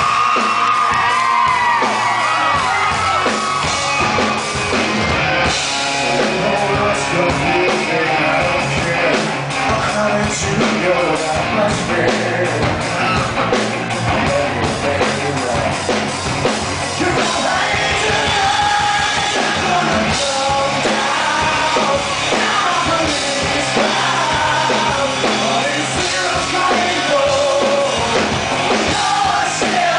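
Live rock band playing a song, with a male lead singer singing over guitars and drums.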